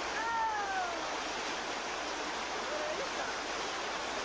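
Water rushing over rocks in a small cascade, a steady hiss. Near the start a voice calls out once with a falling pitch, and there is a brief vocal sound about three seconds in.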